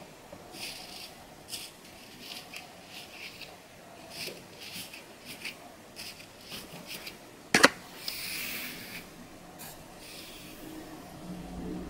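A long fingernail scratching a flaky, dandruff-covered scalp: short rasping strokes through the hair, about two a second. About two-thirds through comes a sharp click, the loudest sound, followed by a longer scrape.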